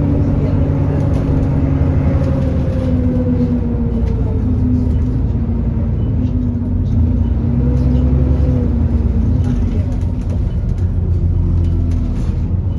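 Alexander Dennis Enviro400 E40D double-decker bus running, a low engine drone under a steady whine that dips slowly in pitch and back. This is the loud cooling-fan 'hoover' the bus is known for, a sign of it running hot.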